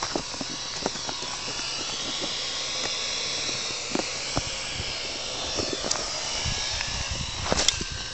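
Small quadcopter drone's rotors whining steadily as it flies low over the ground, with a few sharp knocks near the end.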